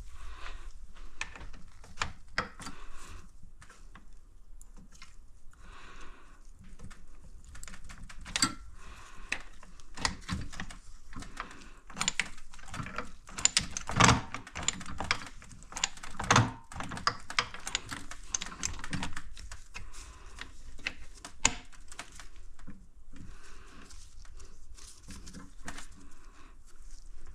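Irregular small clicks, taps and knocks of metal engine parts and hand tools being handled and fitted during motorcycle engine reassembly, with a couple of louder knocks about halfway through.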